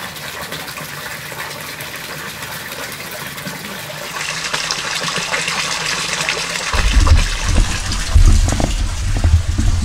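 Steady rush of water from the pool's small waterfall feature. About four seconds in the rush turns brighter, and from about seven seconds in loud low rumbling bumps are laid over it.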